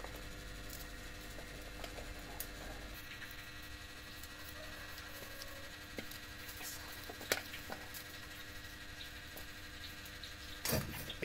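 Quiet background with a steady faint hum, scattered small clicks and light taps, and a single louder knock near the end. The lowest part of the hum stops about three seconds in.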